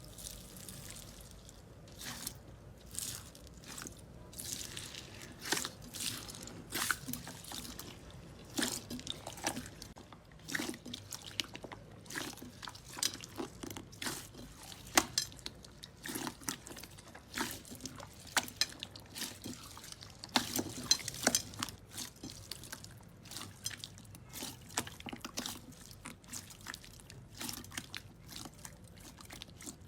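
Slime being squeezed and worked by hand, giving a steady run of irregular wet clicks, pops and crackles.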